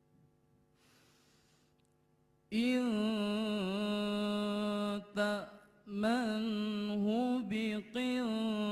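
A male qari reciting the Quran in melodic tilawah style through a microphone. After a near-silent pause of about two and a half seconds, a loud, long-held vocal phrase begins, its pitch wavering and ornamented, broken by brief pauses for breath.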